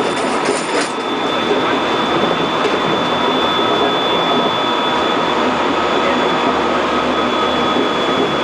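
Korail 311000-series electric multiple unit heard from inside the car while running at speed: a steady rumble of wheels on rail with a thin high tone held throughout, and a short high hiss in the first second.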